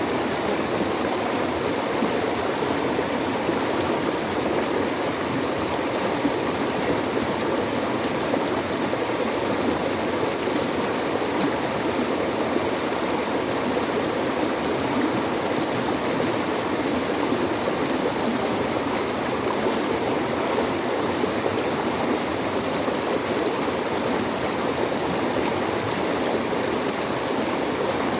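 Steady running water, an even, unbroken wash of noise.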